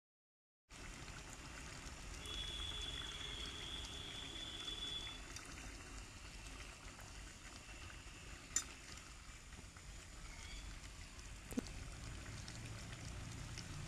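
Broccoli and duck-egg mixture simmering in a metal pan over a wood fire, a steady soft hiss and bubbling as it is stirred. Two sharp clicks of the metal spatula against the pan, about three seconds apart.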